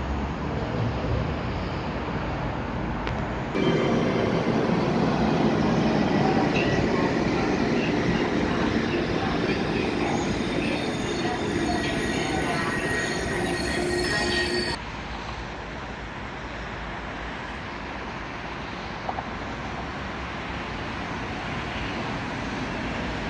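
A passenger train of blue locomotive-hauled coaches rolls along the platform, with steady squealing tones from the wheels over the running rumble. Partway through this cuts off abruptly, giving way to the quieter, even running noise of a double-deck electric unit passing close by.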